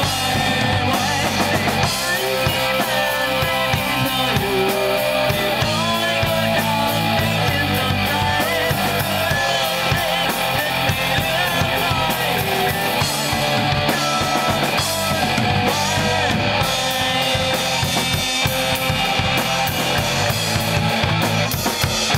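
Rock band music: a drum kit with bass drum and snare keeps a steady beat under electric guitar, with a wavering melody line over the top.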